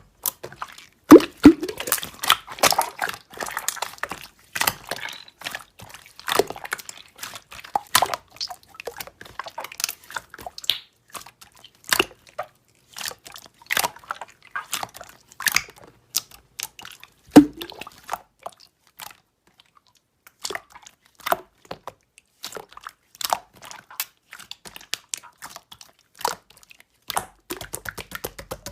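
Slime being squished and pressed by hand: a fast, irregular run of sticky clicks and small pops, with a few louder squelches near the start and about two-thirds of the way through.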